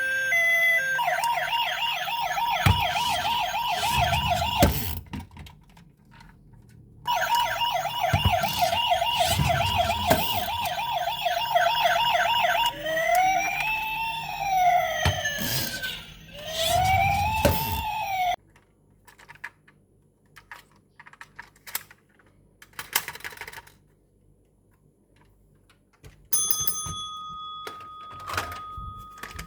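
Toy police car's electronic siren: a fast warbling siren that breaks off for a couple of seconds, starts again, then turns to a slower rising-and-falling wail for about five seconds before stopping. Light clicks of handling follow, and near the end a steady high beep-like tone starts.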